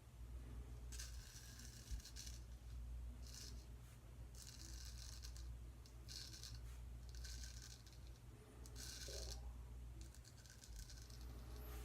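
Gold Dollar 208 straight razor scraping through lathered stubble in a series of short strokes, about seven in all, each a fraction of a second long.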